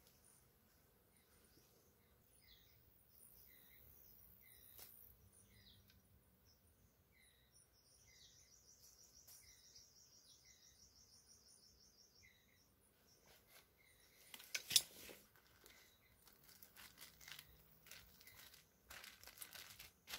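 Quiet, with faint bird chirps repeating about once a second and a high trill for a few seconds midway. From about two-thirds of the way in, a plastic bag crinkles sharply as it is handled, loudest just after the crinkling starts.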